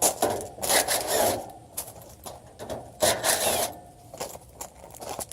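Scraping and rubbing of tools and sheet-metal parts while screws are taken out of an air-conditioning condenser's panel, in three main bursts near the start, around a second in and about three seconds in.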